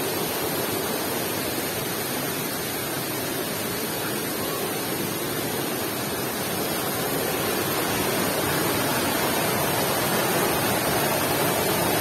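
Steady rushing of a small waterfall cascading into a rocky stream pool, growing a little louder over the second half.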